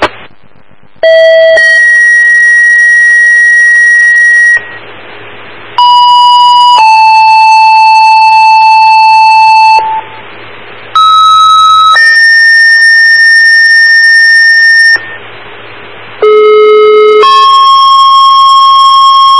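Fire dispatch two-tone paging tones over a scanner radio, toning out the Brownville and Sackets Harbor fire departments: four pages in a row, each a short tone of about a second followed by a longer tone of about three seconds at a different pitch. Short bursts of radio hiss fall between the pages, over a low steady hum.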